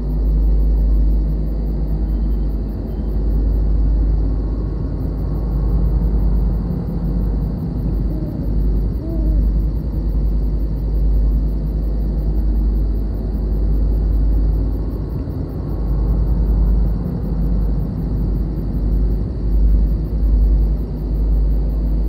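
Layered night-storm ambience: a continuous deep rumble of distant thunder, rising and falling in waves, with a steady high cricket drone running over it.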